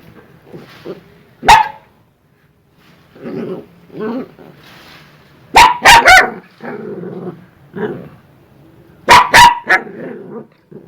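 Dogs barking aggressively. One sharp bark comes about a second and a half in, three loud barks in quick succession come midway, and two more come near the end, with quieter barks between.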